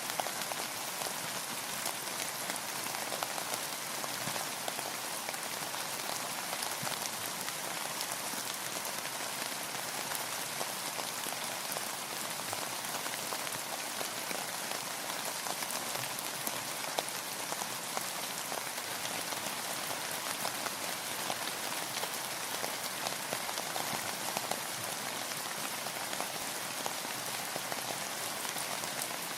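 Steady rain falling, a constant hiss with many individual drops pattering on a surface.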